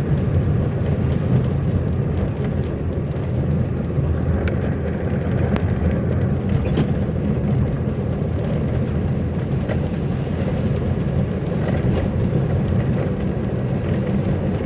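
Steady car road and engine noise heard from inside a moving car in the rain, with a few scattered sharp taps of raindrops striking the windshield.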